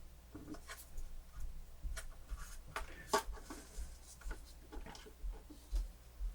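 Faint, scattered clicks and short scrapes of small plastic parts and a circuit board being handled during disassembly of a portable cassette player.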